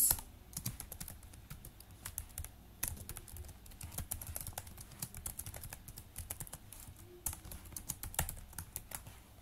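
Computer keyboard typing: quick, irregular keystrokes with a short pause about two and a half seconds in.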